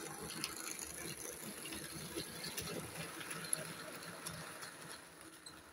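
Märklin model freight train with an E 41 electric locomotive running past: the locomotive's motor whirring and the wagons' wheels clicking and rattling over the track, fading away near the end.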